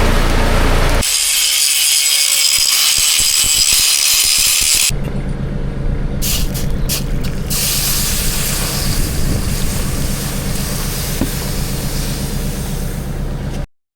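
A bright, steady hiss for about four seconds, then after a sudden cut an engine running steadily at a constant speed, which cuts off to silence near the end.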